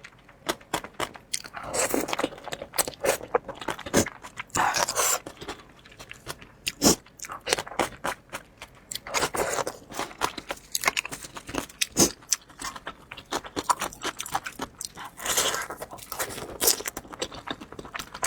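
Close-miked eating: a steady run of crunchy bites and chewing clicks, with a longer wet chewing or slurping sound every few seconds.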